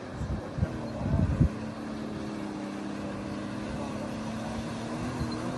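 Vehicle engines running at a steady pitch under load as a truck tows an SUV through deep floodwater. For the first second and a half, irregular rumbles and a few thumps that sound like wind on the microphone cover the engines.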